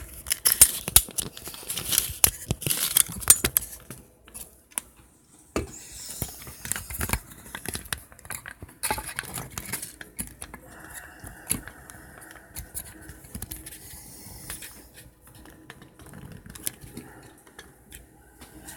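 Handling noise of a smartphone being turned around and fitted into its holder: a run of clicks, knocks and rubbing against the microphone, busiest in the first few seconds, then scattered lighter taps.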